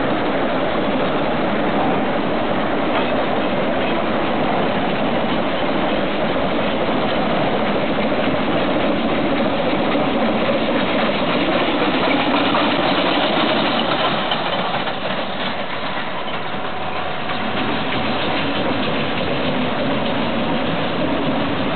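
Swiss-built X-class rack steam locomotive X-37392, oil-fired, working a full train of passenger coaches slowly past on metre-gauge track, with the coaches' wheels clattering over the rails. The sound eases a little about fifteen seconds in as the train moves away.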